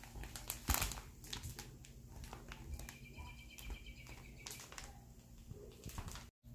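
Plastic bag of braiding hair crinkling and crackling as it is gripped and handled, with one louder crackle under a second in.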